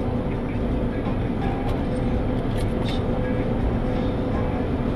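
Steady rumble of car wash machinery running, with a constant hum.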